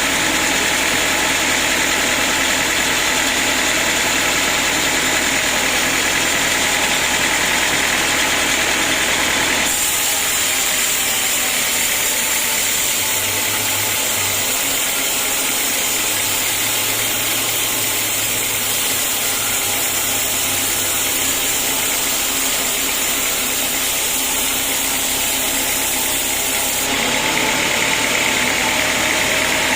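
Sawmill machinery running steadily, a dense mechanical hum and hiss; its tone shifts abruptly about ten seconds in and again near the end.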